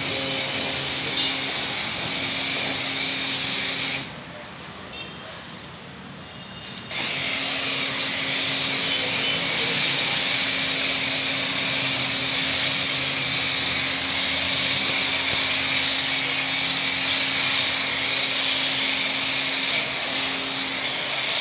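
Pressure washer gun spraying a car with a steady hiss over the hum of its pump. About four seconds in, the spray and hum stop together for about three seconds, then start again.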